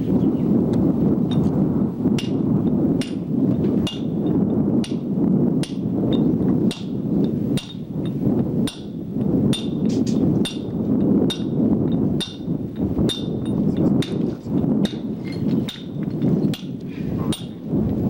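Hammer blows in stone masonry work: repeated sharp strikes at an irregular pace of about one or two a second, each with a brief metallic ring, under a low rumble of wind on the microphone.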